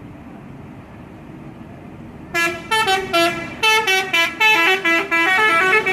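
Telolet horn on an Indonesian coach: a multi-tone musical air horn bursting in a little over two seconds in and playing a quick stop-start tune of short notes that step up and down in pitch, over a low steady background hum.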